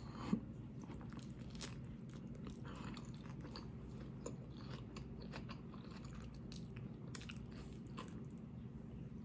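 A person biting into a chicken salad sandwich and chewing it: one louder bite just after the start, then faint, irregular chewing and crunching over a low room hum.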